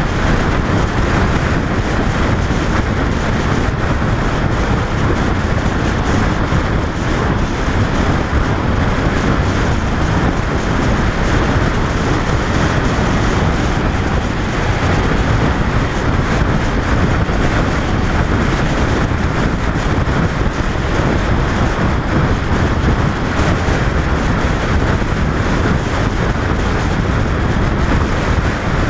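Steady wind noise buffeting the microphone of a camera mounted on a 2005 Honda VFR800 riding at speed, blended with the motorcycle's running and road noise.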